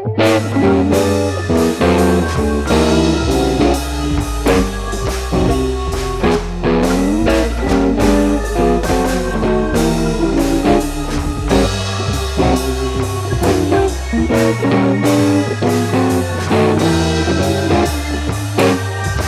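Background music: a guitar tune with bass and drums at a steady beat.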